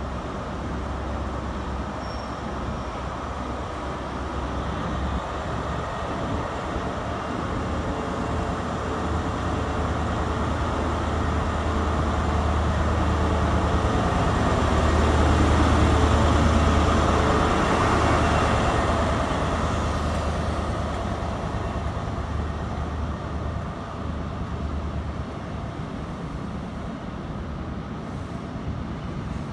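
InterCity 125 HST running along a station platform: the Class 43 power car's diesel engine gives a low drone that grows louder as it approaches and passes close about halfway through. The sound then eases as the coaches roll by with steady wheel and rail noise.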